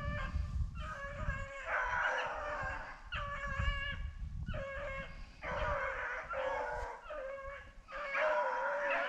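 A pack of rabbit hounds baying in long, repeated, overlapping howling calls, the sound of dogs running a rabbit's scent trail.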